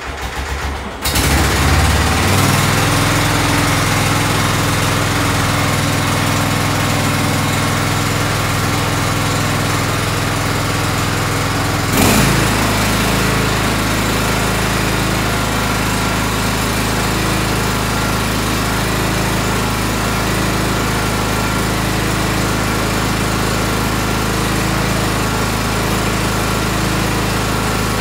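Tractor engine just started, picking up in the first couple of seconds and settling into a steady run. About twelve seconds in there is a knock and the engine note changes, then it runs on evenly.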